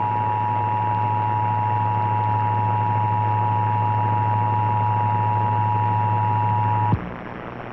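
Emergency Alert System attention signal: the steady two-tone alarm (853 and 960 Hz together) broadcast over radio, with a low hum beneath it. The tone cuts off sharply about seven seconds in, leaving hum and hiss.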